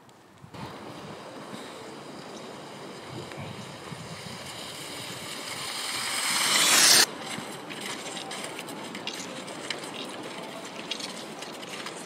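Cross-country skis hissing over a groomed, hard-packed snow track as a skier glides downhill toward the microphone, growing steadily louder and cutting off abruptly about seven seconds in. After that comes a quieter hiss with the scraping and clicking of skate skis and poles.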